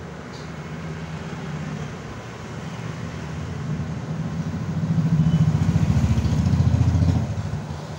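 A vehicle engine running, with a fast low pulsing that grows louder about halfway through and falls away shortly before the end, over a steady low hum.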